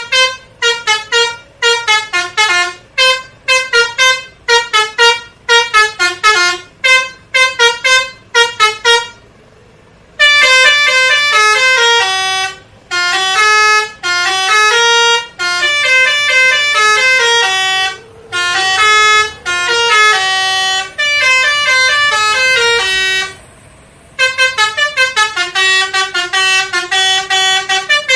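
Telolet horn, the multi-tone musical bus horn, playing tunes. About nine seconds of rapid short toots are followed, after a brief pause, by longer held notes stepping up and down in a melody. After a short break near the end come rapid toots again.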